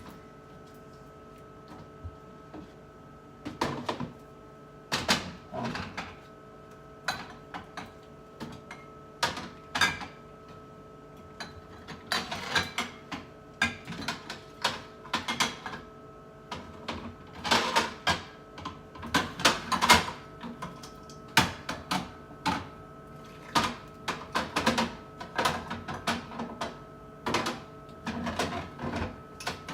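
Jars, bottles and food containers being set down and shuffled on refrigerator shelves: irregular clatter and knocks, busier in the second half, over a faint steady hum.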